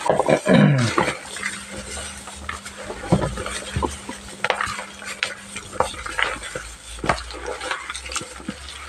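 A gloved hand mixing and squeezing raw fish pieces with seasonings in a plastic basin: wet squelching and plastic rustling, with irregular small knocks and scrapes. A short falling pitched call sounds near the start.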